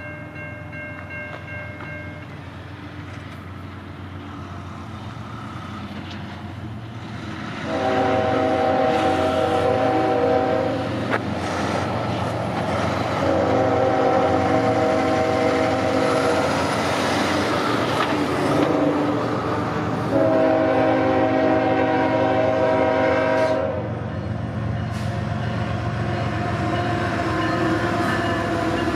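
A diesel freight locomotive's air horn, on a GE ES44AC, sounds three long blasts of about three seconds each as the train approaches. Between and after the blasts the engine's low rumble and the passing train grow louder toward the end.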